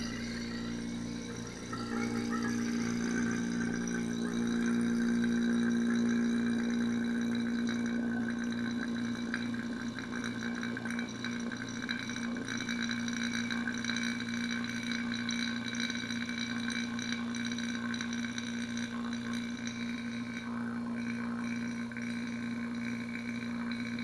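Old Marvac rotary vane vacuum pump running steadily, a steady hum with an even pulsing beneath it, as it pulls a vacuum on a sealed jar of water.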